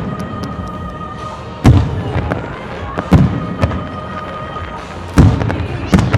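Aerial firework shells bursting with loud booms, four main bangs a second or two apart, over music played through loudspeakers.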